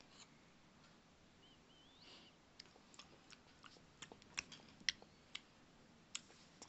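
Faint chewing and crunching of sour Skittles, heard as scattered sharp clicks and crunches that begin a couple of seconds in.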